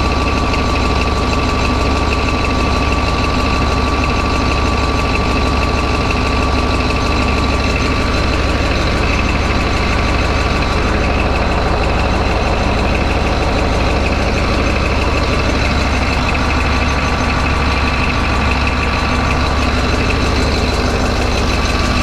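CAT D11 bulldozer's diesel engine idling steadily, with a steady high tone over it, while it drives the air-conditioning compressor during refrigerant charging.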